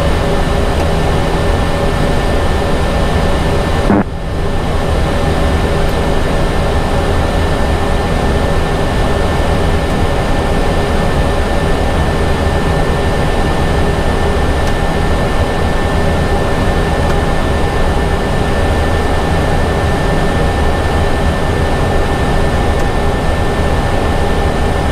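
Airbus A320 flight-deck noise in the climb: a steady rush of air and low hum with a few steady high tones running through it, broken by a short click about four seconds in.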